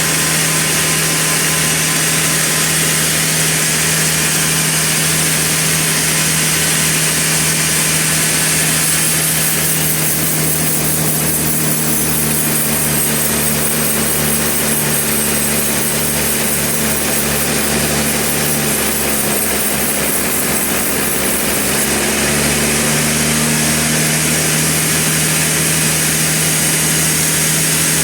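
Sawmill running steadily with a constant low hum, the saw cutting through a large trembesi log. The hum dips briefly about two-thirds of the way through.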